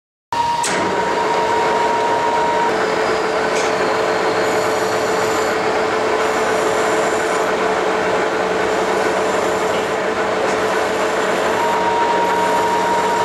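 A metal lathe running with a hand file held against the threads of the spinning shaft, filing the freshly cut thread: a steady, even scraping over the lathe's constant hum. It cuts in abruptly at the very start.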